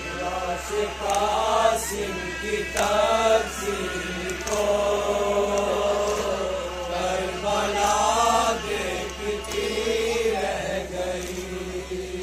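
A man chanting a noha, a mourning lament for Karbala, into a microphone. His voice rises and falls in long, drawn-out melodic lines.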